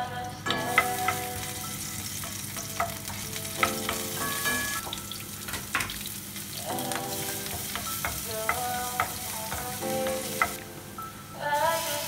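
Sliced onion and minced garlic sizzling in hot oil in a nonstick frying pan, with a wooden spoon stirring and knocking against the pan in sharp clicks.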